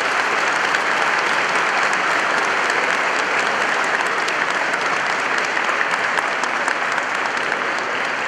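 Audience applauding: dense, steady clapping from a large crowd, easing slightly near the end.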